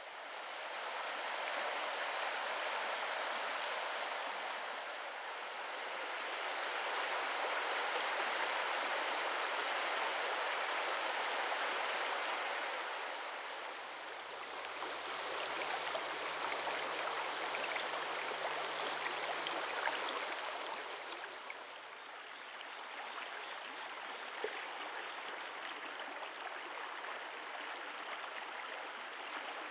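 Flowing water of the Meramec River, a continuous rushing hiss that swells and eases in loudness.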